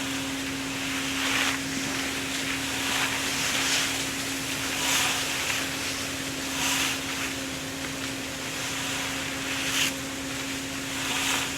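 A steady engine hum with short scraping swishes every second or two on top.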